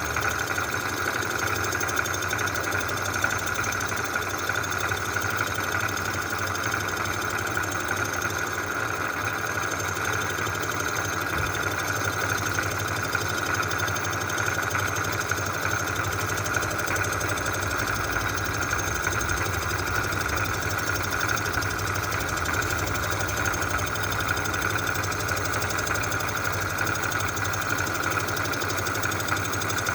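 A shop machine's motor running steadily with a constant whine and no pauses.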